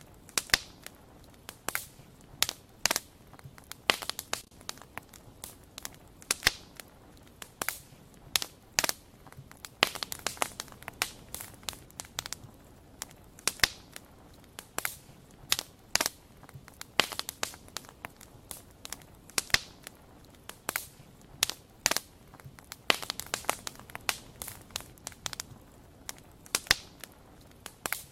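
Wood fire crackling, with sharp irregular pops and snaps several times a second over a faint low hiss.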